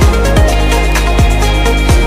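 Electronic dance music with a pounding kick drum, about two and a half beats a second, over sustained synth chords and a deep bass.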